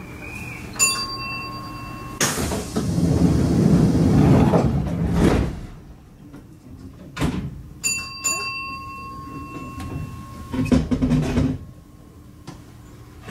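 Train doors closing on a stationary Kintetsu Osaka Line express: an electronic tone sounds for about a second and a half, then a loud rushing noise lasts about three seconds as the doors slide shut. Later come a click, a second tone that opens with a few short beeps, and a few thumps.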